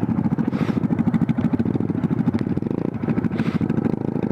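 Honda Grom's single-cylinder engine running through an open header, its muffler having fallen off, with a rapid, even exhaust beat.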